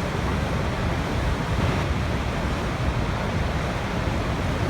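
Waterfall: a steady, unbroken rush of falling water, heaviest in the low range.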